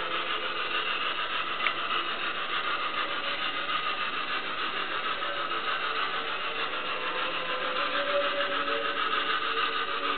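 Hornby model LNER A4 steam locomotive running with its DCC sound decoder playing steam engine sounds through its small onboard speaker: a steady rushing sound with faint tones underneath.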